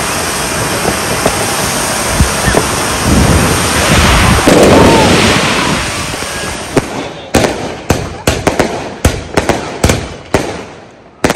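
Fireworks: a ground fountain spraying sparks with a steady hiss that grows louder about three seconds in. From about seven seconds in comes a run of about a dozen sharp bangs and cracks, irregularly spaced.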